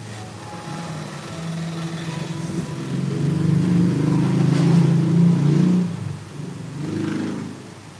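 A motor engine running, its low hum growing louder over a few seconds and then dropping away about six seconds in, with a brief swell again near the end.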